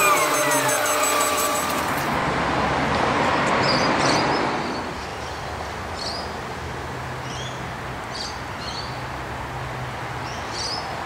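Bus engine and drivetrain winding down inside a moving bus. After a cut, traffic noise swells and then drops away. A low steady hum follows from an O-Bahn guided bus approaching on its concrete track, with birds chirping now and then.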